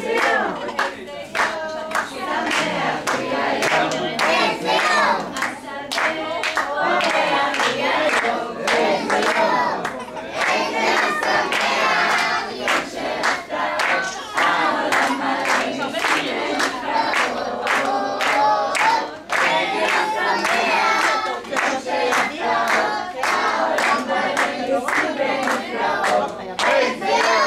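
A group of young children and adults singing a song together, clapping their hands in time, about two claps a second.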